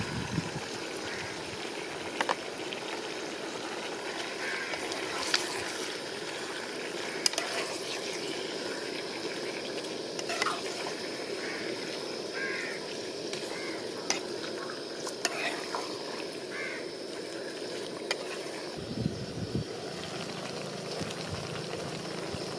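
Chicken liver curry frying in a pan: a steady sizzle, broken now and then by sharp clicks.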